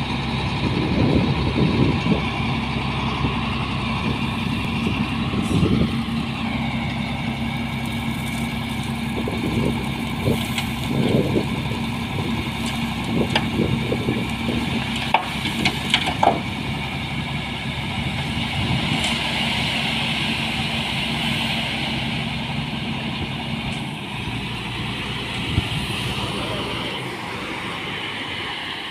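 Heavy dump truck's diesel engine running steadily while it drives the hydraulic hoist that raises the tipper bed, with a few metal clanks about halfway through. Its steady note drops away near the end as the load of gravel starts sliding and pouring out of the tilted bed.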